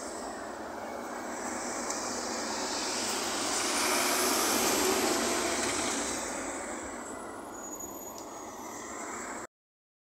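City bus passing close by; its engine and tyre noise swells to a peak about halfway through, then fades. The sound cuts out abruptly near the end.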